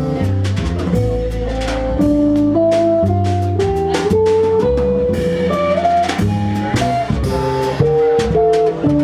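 Jazz quintet playing a Brazilian jazz arrangement: a lead line of held melody notes over moving bass notes, with the drum kit keeping time.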